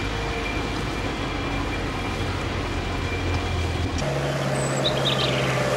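Old truck's engine running steadily as it drives along. About four seconds in the sound shifts to a steadier, deeper hum.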